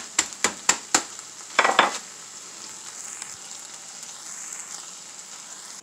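Wooden rolling pin tapping on salted crackers in a plastic bag to crush them, about four taps a second, then a short rustling burst of the bag. After that a steady faint hiss.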